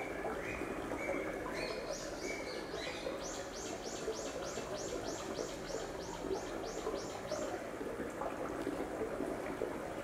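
Wild birds singing over the steady murmur of a stream: short high notes repeated about twice a second, then a fast run of higher arched notes, about four a second, for some four seconds.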